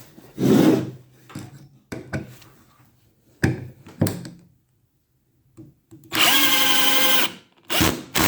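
Warrior 18V cordless drill driver's motor running in one steady burst of about a second, after several short knocks and clicks of the drill being handled.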